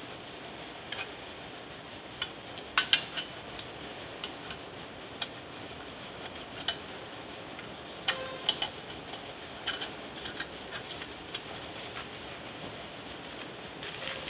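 Irregular metallic clinks and clicks as metal hose clamps and a chrome heat shield are handled against a chrome motorcycle exhaust pipe, over a steady low hiss.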